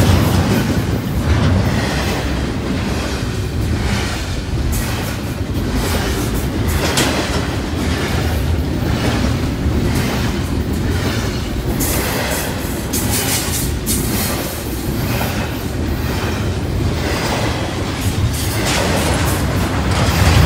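Double-stack intermodal freight train's well cars rolling past close by: a steady rumble of steel wheels on rail with a regular clack, about once a second, as the wheel trucks pass over the rail joints.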